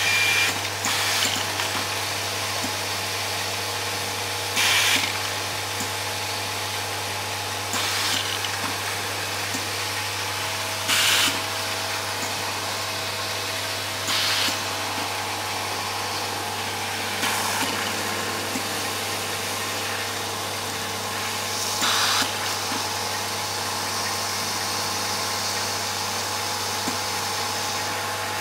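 Automatic laser marking line running: a steady hum from the vibratory bowl feeder, broken every three seconds or so by a short, sharp air hiss as the pneumatic cylinders cycle parts through the marking fixture.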